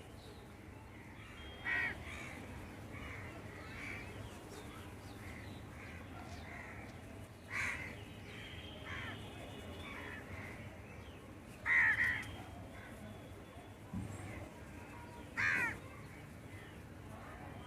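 A bird calling in short calls a few seconds apart, about six in all, the loudest near the two-thirds mark, over a faint steady low hum.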